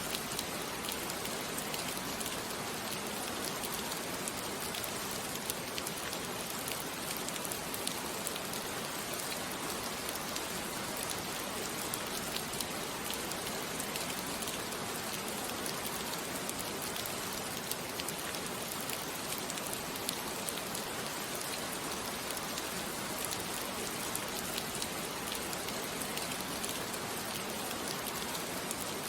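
Steady rain falling on a surface, an even hiss with fine scattered drop patters and no change throughout.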